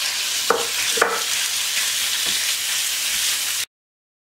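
Minced beef sizzling in hot oil in a non-stick frying pan as a wooden spoon breaks it up and stirs it, with two short knocks of the spoon about half a second and a second in. The sizzle cuts off suddenly near the end.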